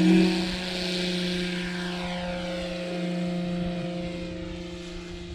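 Twin electric motors and propellers of an E-flite Beechcraft D18 RC model plane running at high throttle: a steady-pitched drone with a whine above it, loudest at first and fading slightly.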